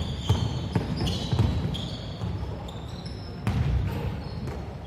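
A basketball dribbled on a hardwood gym court, with a few sharp bounces in the first second and a half. Sneakers squeak briefly against the floor throughout.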